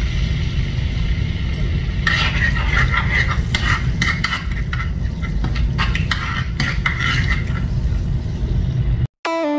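A steel spoon stirring and scraping ginger and green chilli paste in hot oil in a nonstick frying pan, with quick clicks and scrapes of the spoon on the pan from about two seconds in until near the end, over a steady low rumble. The sound cuts out suddenly just before the end.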